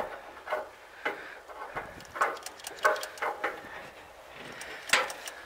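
Irregular light metallic clicks and taps from a hand working the small fuel tap fitting on the DT-75 tractor's engine, with no engine running.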